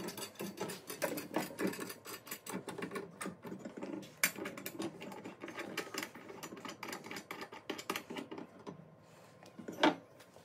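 Rapid metallic clicking and rattling as a wing nut is spun by hand onto the threaded rod of a stainless-steel rotisserie fork, with the parts knocking against a granite countertop. The clicking thins out near the end, and one louder knock comes just before the end.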